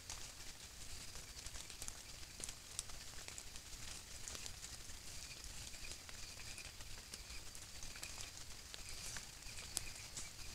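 Faint crackling and ticking of dry leaf litter as a nine-banded armadillo roots and noses through the forest floor, with a sharper tick about three seconds in and another near the end. A steady high trill of night insects runs underneath.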